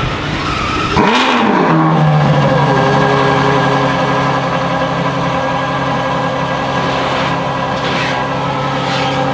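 Ferrari F12 N-Largo S's V12 engine cold-starting: it fires about a second in, the revs flare up and drop back, and it then settles into a steady idle.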